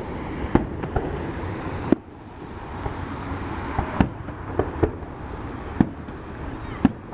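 Fireworks going off: a series of sharp bangs at irregular intervals, about eight in all, some in quick pairs, over a steady background of rumble and hiss.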